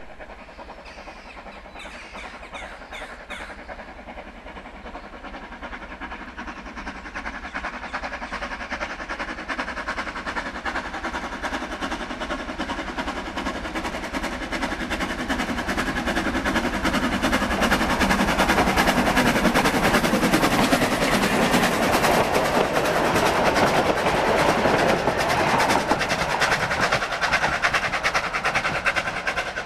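Isle of Man Railway No. 12 Hutchinson, a narrow-gauge Beyer Peacock steam tank locomotive, working a passenger train: its exhaust beat and the carriages' wheels clattering on the rails grow louder as it approaches. It is loudest about two-thirds in as it passes, then eases a little as it draws away.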